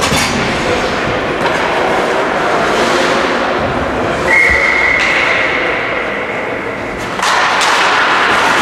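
Ice hockey rink noise during play: a steady rush of skating and play with sharp knocks of sticks, puck or boards, and a short steady whistle blast about four seconds in, typical of a referee stopping play. The noise gets louder about seven seconds in.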